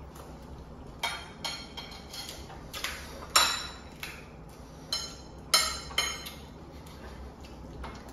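Spoons clinking against plates and bowls: about ten separate sharp clinks, the loudest about three and a half seconds in.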